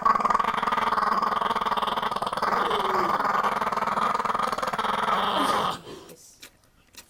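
A dog growling continuously in a rough, rattling growl that stops abruptly about six seconds in, followed by a few faint clicks.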